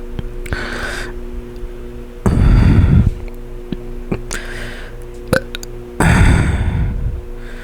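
Heavy breathing close to the microphone after soda burping: four loud breaths about two seconds apart, two of them gusting onto the mic. A steady low hum runs underneath.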